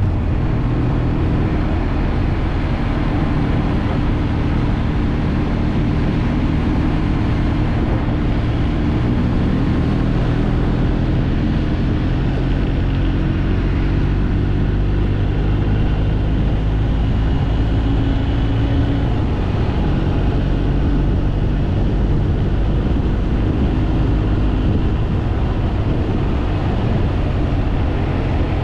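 Motorcycle engine running steadily under way, its note drifting slightly up and down in pitch over a steady rushing noise.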